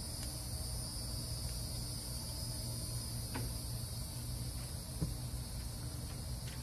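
Insects, crickets or similar, chirring in a steady high drone, over a low steady rumble, with a couple of faint clicks a few seconds in.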